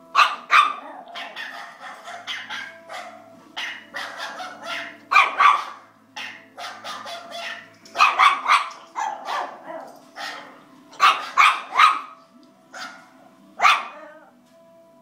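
Small dog barking frantically in repeated bursts of sharp yaps, a few seconds apart, set off by recorded dog sounds.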